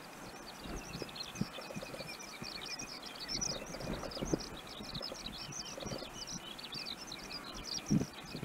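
Dense, rapid chirping of many small birds, a continuous twitter with a faint steady high tone beneath it. A few low thumps come through, the loudest just before the end.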